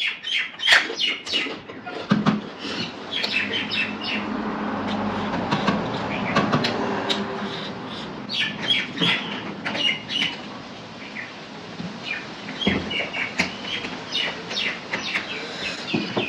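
Close-up eating sounds of a mukbang: chewing and lip smacking, a run of many short, irregular wet clicks.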